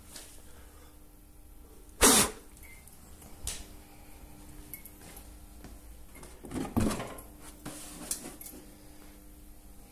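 Thuds and rattles from the ride-on mower's seat and plastic engine cover being tipped forward by hand. The sharpest thud comes about two seconds in, with a smaller knock after it and a cluster of thumps near the end, over a faint steady hum.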